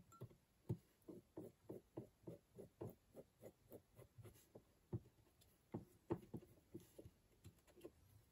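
Faint soft ticks, about three or four a second, as a mini drill is turned by hand, its small twist bit opening out a pre-drilled hole in a model part from 0.4 to 0.5 mm.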